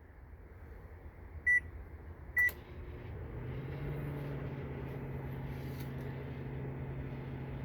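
Microwave oven beeping twice, then starting up and running with a steady low hum. It sounds smooth, a lot better than a microwave that makes a rumbling sound, so the oven is working normally.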